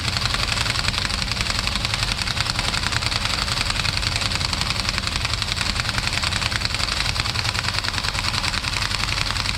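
Impact wrench hammering steadily and rapidly as it runs down the 32 mm axle nut, drawing the axle into the new rear hub assembly.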